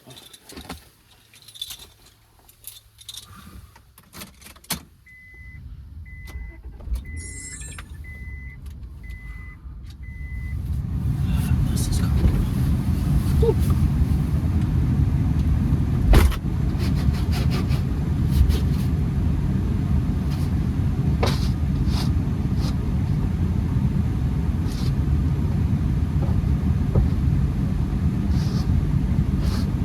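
Clicks and key jangling inside a Honda Accord, then a dashboard chime beeping six times at an even pace. About ten seconds in, a steady low rumble of the running car sets in and continues, with occasional clicks and knocks.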